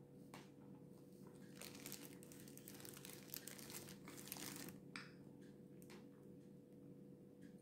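Faint crackling and crinkling for about three seconds in the middle, with a few separate clicks around it, over a steady low hum.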